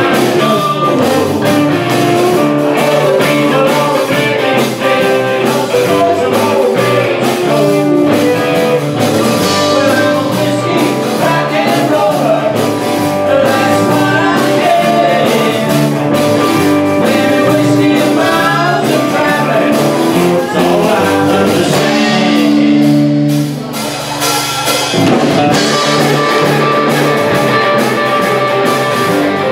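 Live blues-rock band playing loud: overdriven electric guitar, bass, drum kit and sung vocals. About three quarters through, the band drops briefly to a held chord, then comes back in at full volume.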